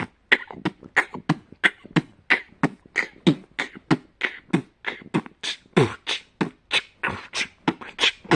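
A vocal beatbox beat: an even run of sharp, percussive mouth sounds, three or four a second, with deep kick-drum-like booms among them.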